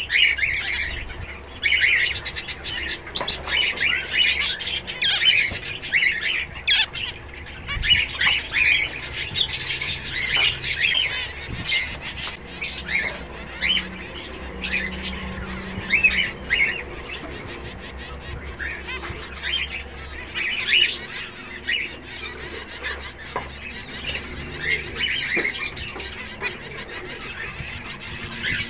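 A flock of zebra finches calling with many short, overlapping chirps, one after another, with no pause.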